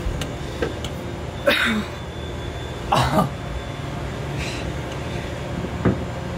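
A man's short breathy coughs or grunts, three of them: about a second and a half in, about three seconds in, and near the end. A steady low hum runs underneath.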